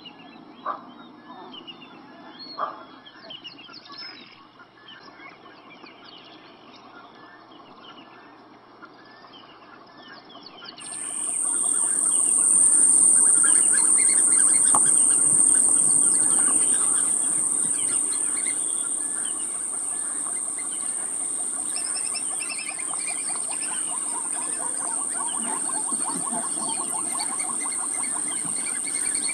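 Birds chirping, with two sharp knocks in the first few seconds. About eleven seconds in, a loud, steady, high-pitched insect buzz starts abruptly and stays louder than the birdsong.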